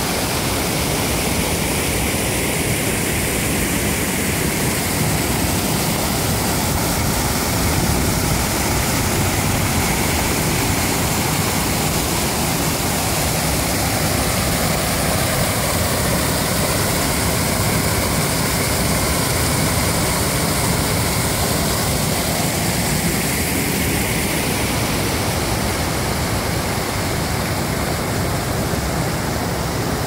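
Mountain stream and waterfalls rushing over rocks: a loud, steady rush of water.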